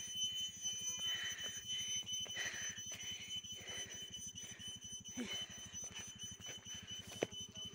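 Footsteps crunching on a gravel dirt track at a walking pace, over the faint low hum of a motor scooter's engine as it rides up the track, with a thin steady high whine behind.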